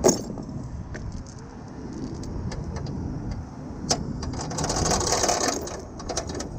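Steel tow chain clinking and rattling as it is handled at a truck's front bumper. A sharp knock comes right at the start, then scattered clinks, then a longer rattle about four and a half seconds in, all over a low rumble.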